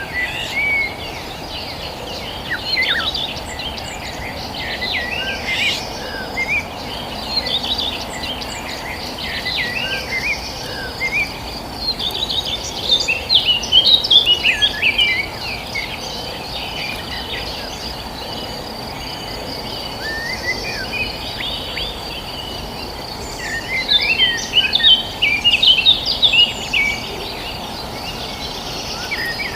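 Several small birds chirping and calling in quick, overlapping phrases, busiest around the middle and again near the end, over a steady high insect buzz and a low, even rushing noise.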